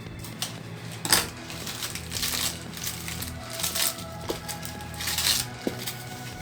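Plastic and banana-leaf wrapping rustling and crinkling as it is pulled off a plant, in irregular crackles with a sharp, loud one about a second in.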